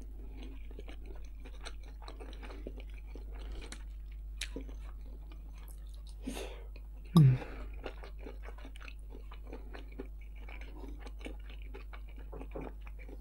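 Close-up chewing and biting of a mouthful of rice, with small clicks of a wooden fork against the plate. One brief, louder low sound about seven seconds in.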